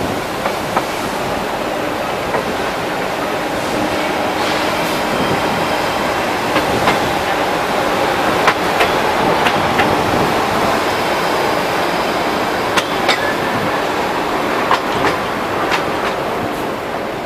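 Running noise of a DEMU commuter train, heard at an open window: a steady rumble with sharp clicks of the wheels over rail joints. The clicks come at irregular intervals, most of them in the middle and later part.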